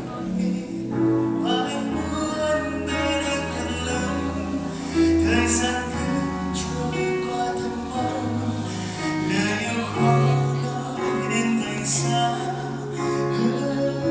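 Band playing a pop song, an instrumental stretch with bass, sustained chords and occasional cymbal hits, and little or no sung lyric.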